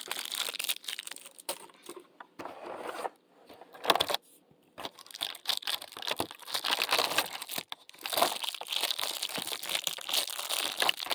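Packaging crinkling and tearing as a small fidget toy is unwrapped by hand, in irregular crackles with a couple of short pauses.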